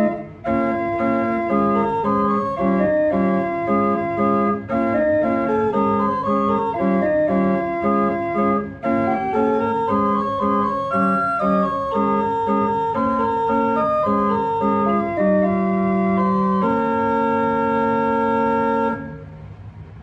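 Church organ playing the closing voluntary after the blessing: a run of moving chords that ends on a long held final chord. The chord cuts off about a second before the end and the sound dies away in the church's reverberation.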